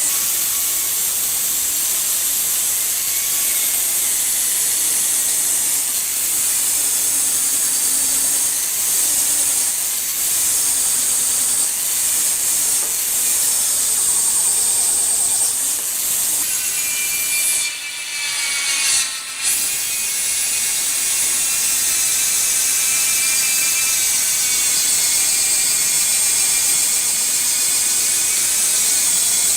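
A power tool running steadily against a workpiece with a high, hissing grind. About two-thirds of the way through it cuts out briefly twice, then picks up again with a clearer whine.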